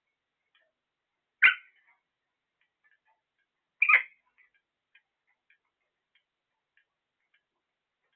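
Two short, sharp parrot calls about two and a half seconds apart, followed by a few faint scattered ticks.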